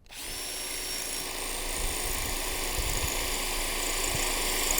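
Cordless drill running steadily in plain drill mode with the hammer function off, a masonry bit boring slowly into a concrete block. It starts just after the beginning and grows slightly louder.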